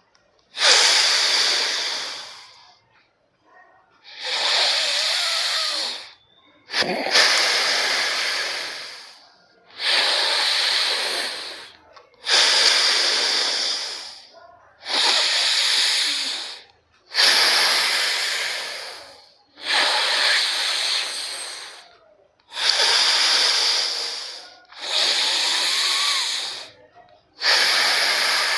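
Alternate-nostril breathing (anulom vilom pranayama) close to the microphone: about a dozen long breaths drawn in and pushed out through one nostril at a time, one every two to three seconds, each starting strong and fading before a short pause.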